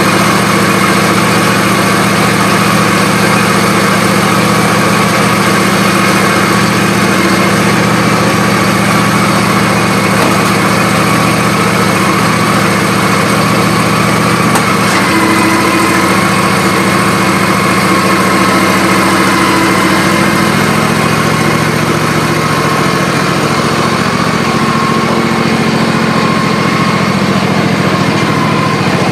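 John Deere D140 riding lawn tractor's engine running steadily at idle, freshly tuned up with new oil, air filter and fuel filter.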